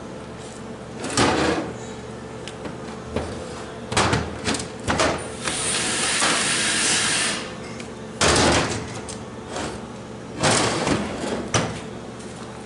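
Workshop handling noises: a series of clunks and knocks, with a steady hiss of about two seconds near the middle.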